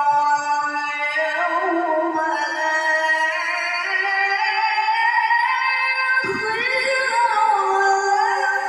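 Singing over music: a voice holding long notes that slide between pitches. Low thumps join in about six seconds in.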